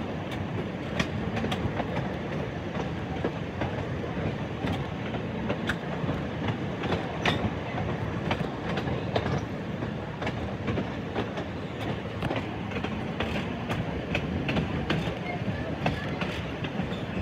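Ex-TTC PCC streetcar running along the track: a steady rumble of wheels on rail with many sharp, irregular clicks, such as wheels passing over rail joints.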